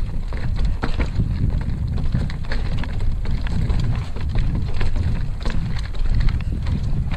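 Mountain bike riding a rocky dirt trail: wind buffeting the microphone over the tyres crunching on dirt and rocks, with frequent sharp clicks and rattles from the bike.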